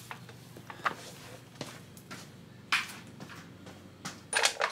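A few light clicks and clinks of tools and hardware being handled, with a denser clatter near the end.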